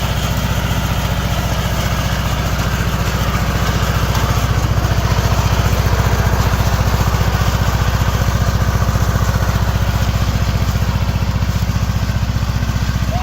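Riding lawn mower's small engine running steadily under load while driving, growing a little louder for a few seconds midway.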